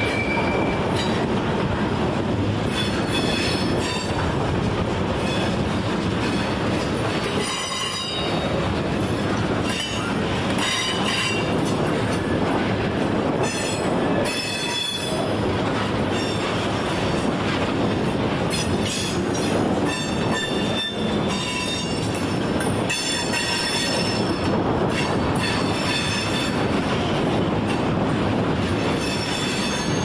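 Wheeling & Lake Erie freight train rolling by with a steady rumble. High-pitched steel wheel squeal comes and goes, mostly in the middle and second half.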